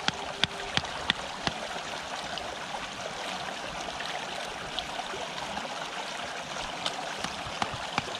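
Water flowing steadily through a narrow field channel, an even rushing trickle. Sharp short clicks sound repeatedly in the first second or so, and a few more come near the end.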